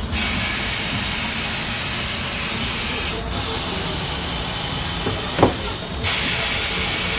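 Compressed air hissing steadily. The hiss eases off about three seconds in and comes back strongly about six seconds in, with a sharp clack a little after five seconds and a low steady rumble underneath.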